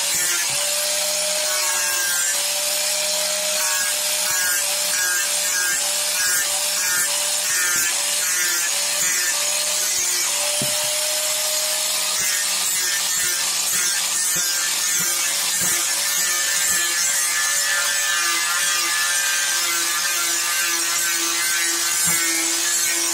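Electric angle grinder grinding and carving a block of wood without pause: a steady motor whine over the hiss of the disc abrading the wood.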